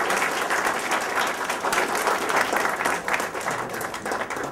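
A small audience applauding, a dense run of clapping that thins slightly toward the end.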